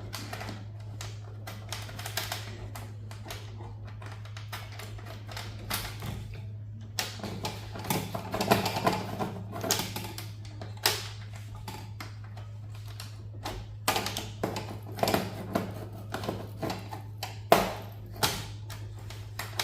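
Irregular clicks and taps of a screwdriver and small metal and plastic server parts being handled as screws are taken out, some clusters of rapid clicks, over a steady low hum.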